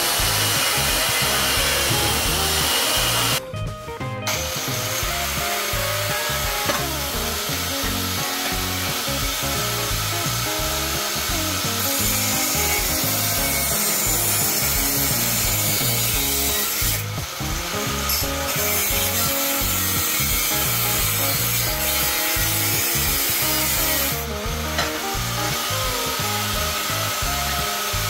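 Power grinding on a steel motorcycle exhaust header: a grinding bit in an electric drill at first, then a small angle grinder, opening out the inside of the pipe. The grinding runs continuously and loud, with short breaks about 4, 17 and 24 seconds in.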